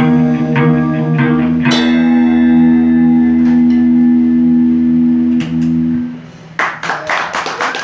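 Electric guitars and bass play the closing chords of a rock song, a final chord struck about two seconds in and left ringing until it stops about six seconds in. Scattered clapping starts near the end.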